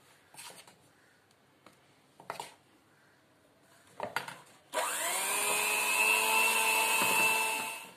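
A few light clicks and taps, then a handheld electric mixer switched on about two-thirds of the way in, whirring up to speed and running steadily as it beats cake batter, and cutting off just before the end.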